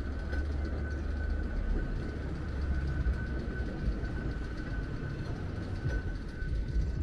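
Water-ballast funicular car running along its rails on the cable incline: a steady low rumble with a thin, constant high whine.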